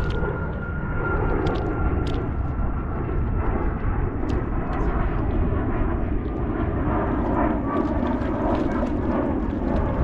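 Steady rushing outdoor noise, with a few faint clicks and a faint, slowly falling whine in the first few seconds.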